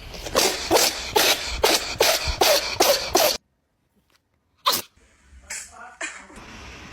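A cat with nasal discharge sneezing in a rapid fit, about nine sneezes in quick succession over three seconds, then one more sharp burst a moment later.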